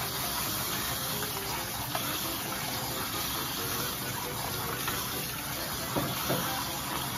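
Tap water running steadily into a stainless steel colander as hands rinse and rub cooked noodles in it, a continuous splashing gush.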